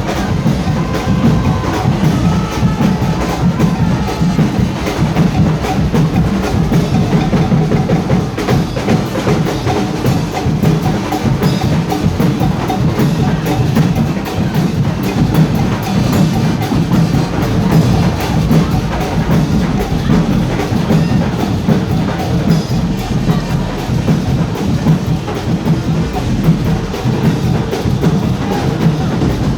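Carnival street band drumming: loud, continuous percussion with bass drums thudding under a fast stream of sharp wooden clicks, without a break.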